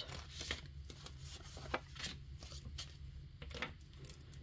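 Faint rustling and light clicks of paper cash and plastic binder envelope pages being handled, with a pen on paper near the end.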